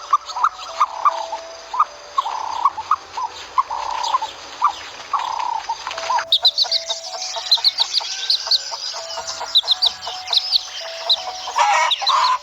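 Chickens clucking in short repeated calls. About six seconds in, the sound cuts to small birds chirping rapidly at a much higher pitch.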